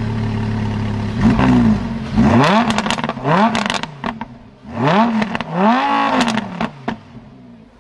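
Lamborghini Huracán's 5.2-litre V10 idling, then revved in several quick blips that rise and fall in pitch, with pops and crackles from the exhaust as the revs drop. The engine settles and quietens near the end.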